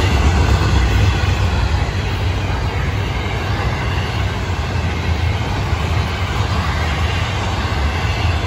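Florida East Coast Railway intermodal freight train's container cars rolling past on the rails: a steady, loud rumble of wheels on track.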